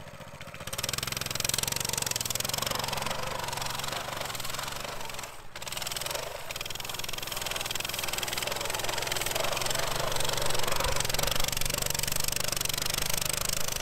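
Small pit bike engine revving under throttle as the bike pushes through deep snow, with a brief drop about five and a half seconds in.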